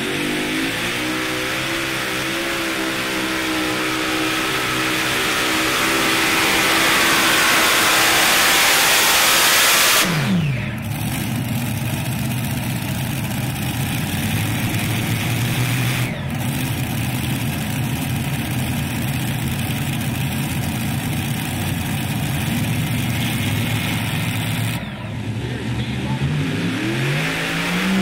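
Multi-engine super modified pulling tractor at full throttle under load down the track, its engine note rising and growing louder for the first ten seconds. Then an abrupt change to a lower, rougher steady engine drone, and near the end another pulling tractor revs up with a rising note.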